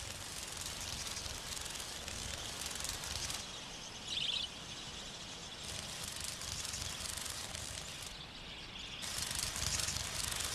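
Steady outdoor ambient hiss, with one short high chirp about four seconds in.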